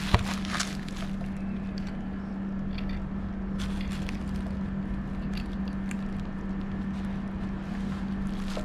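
Faint handling clicks and rustles as a scooter throttle cable is pushed through the hole in the handlebar, with one sharp click right at the start. A steady low hum runs underneath.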